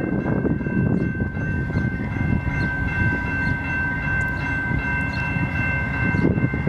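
VIA Rail passenger train led by a GE P42DC diesel locomotive running into the station. The locomotive and cars rumble loudly, with a steady high-pitched squeal of several tones held over it throughout.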